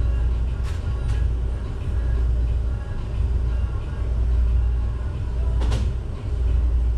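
Steady low machine hum from running equipment, with a few faint clicks.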